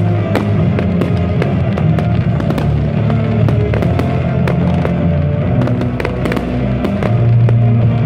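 Fireworks display: sharp bangs and pops of bursting shells, a few a second, over loud, steady show music.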